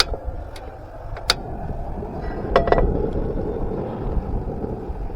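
Strong wind rumbling on the microphone, with a few sharp clicks and knocks from handling camp gear.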